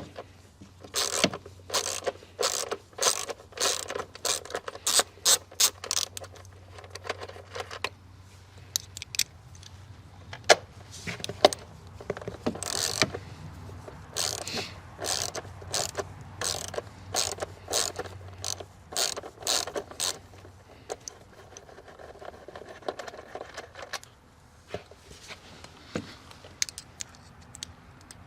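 Socket ratchet on a 10mm socket clicking in quick runs of short clicks, undoing the engine cover bolts, with pauses between bolts.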